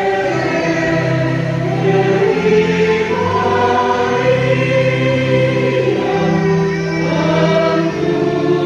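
A choir singing slow, sustained chords, several voices, low and high, holding long notes that shift every second or two.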